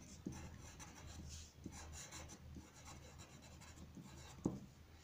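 Pencil writing on paper: the lead scratches faintly through a string of short strokes, with one light knock near the end.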